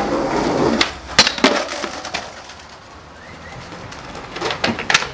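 Skateboard rolling, then sharp wooden clacks of the board hitting and landing, a few about a second in and more near the end.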